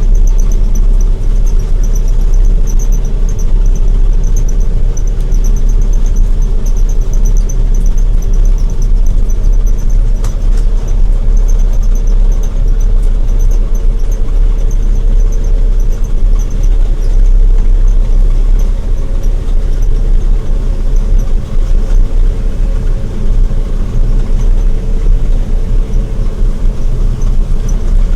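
Large harvest machine's diesel engine running steadily under load while shelling corn: a loud, constant low rumble with a steady hum over it and a faint fast pulsing high up.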